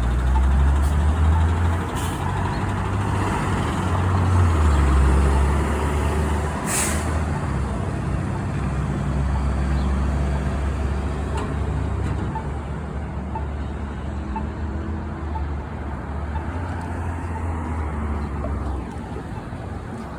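Orion diesel city bus heard from inside while under way: the engine rumbles low, swelling and easing with the driving, over a steady roar of machinery. About seven seconds in there is one short, sharp burst of air-brake hiss.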